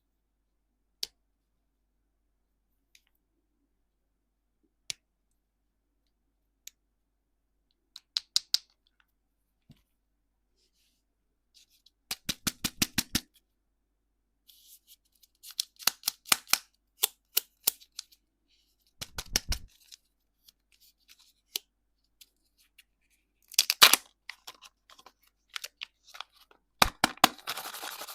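Candy packaging being handled and opened close to the microphone. A few isolated sharp clicks come first, then bursts of rapid crackling clicks several times over, from about halfway on.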